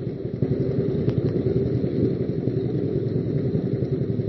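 Motorcycle engine running steadily, with a rapid, even exhaust beat.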